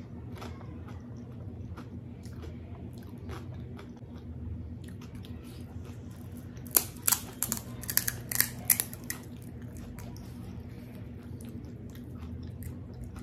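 Crisp, hollow fried panipuri shell crackling as it is broken open by hand: a quick cluster of sharp cracks in the middle, over a low steady hum.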